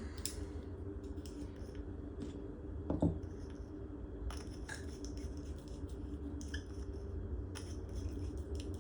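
Small clicks and scrapes of a glass nail polish bottle being handled as its stuck cap is twisted, with one louder knock about three seconds in, over a steady low hum.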